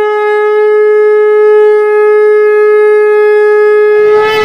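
A conch shell (shankh) blown in one long, loud, steady note, its pitch held level throughout. Street noise comes up underneath near the end.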